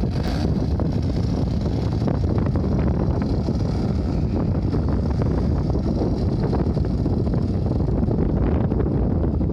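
Strong wind buffeting the microphone with a low rumble, over the faint distant drone of a small 10cc gasoline engine on an RC Sukhoi model aircraft in flight, which fades near the end.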